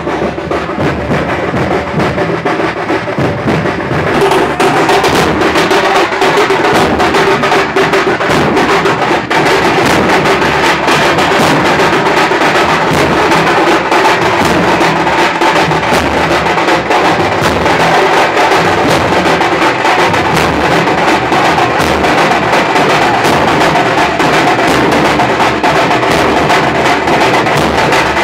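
Loud live drumming played continuously with fast repeated strikes. It gets louder and brighter about four seconds in.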